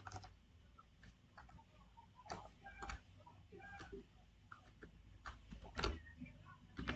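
Faint, irregular clicks of someone working a computer: a dozen or so short, sharp clicks spread unevenly, with a few louder ones about two, three and six seconds in.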